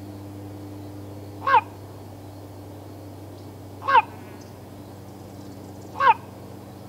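Common raven calling three times, about two seconds apart: short croaking caws that fall slightly in pitch, over a steady low hum.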